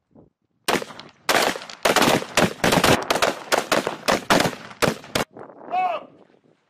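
Rifles fire a rapid, irregular string of about twenty shots over some four and a half seconds. The shots are close-range gunfire from M4-style carbines on a firing line.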